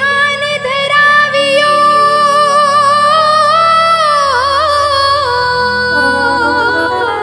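A woman singing a Rajasthani devotional bhajan, holding one long note and then ornamenting it with quick wavering turns about four seconds in, over a steady harmonium accompaniment.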